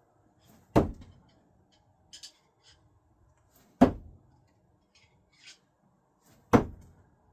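Three thrown screwdrivers striking the target one after another, about three seconds apart, each a sharp thunk with a brief ringing tail, with faint clicks and handling noise between throws.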